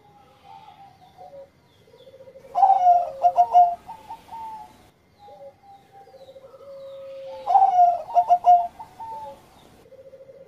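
Caged zebra dove (Bangkok-type perkutut) singing its single-style (engkel) song: two cooing phrases about five seconds apart. Each phrase is a soft held note, then a quick run of loud notes, then a falling trailing note.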